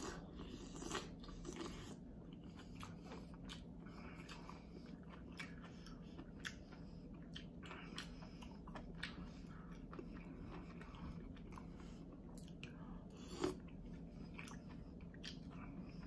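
Faint chewing of cooked green-lipped mussel meat, with many small scattered clicks of the shells handled in the fingers and one louder click about 13 seconds in.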